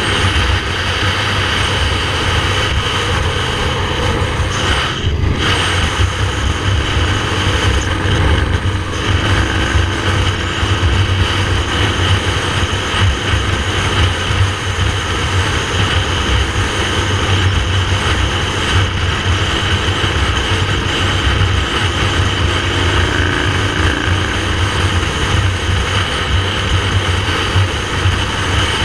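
Motorcycle engine running steadily at road speed, with wind rushing over the onboard microphone; there is a brief dip in the sound about five seconds in.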